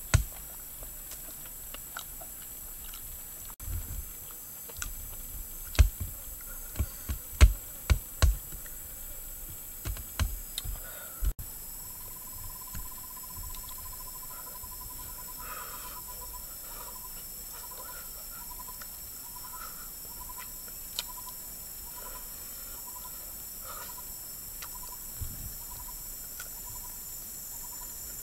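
Close-up chewing and crunching of chicken pieces, with a run of sharp crunches over the first ten seconds or so. After that the chewing stops and an insect's steady, evenly pulsed chirping takes over, above a constant high insect drone.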